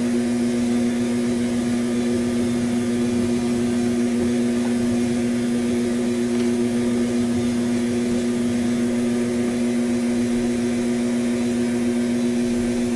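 West Bend stand mixer motor running steadily with a constant hum, its beaters churning thick banana bread batter in a stainless steel bowl.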